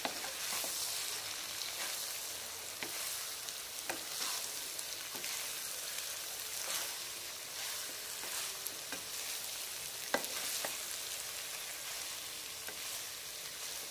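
Wooden spatula stirring and scraping cauliflower and mutton around a non-stick wok, over a steady sizzle of frying. The spatula strikes the pan with a sharper knock about ten seconds in.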